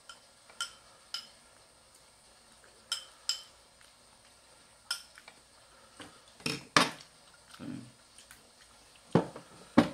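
Metal spoon and fork clinking against a stainless steel bowl and a ceramic bowl while eating: about ten scattered clinks, the loudest about two-thirds of the way in and near the end.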